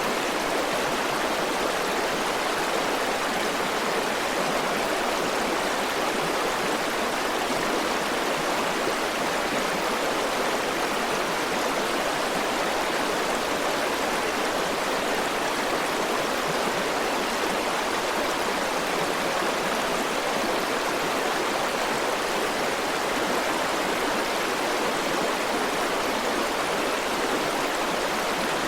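River water flowing over rocks: a steady, unbroken rushing without changes or individual events.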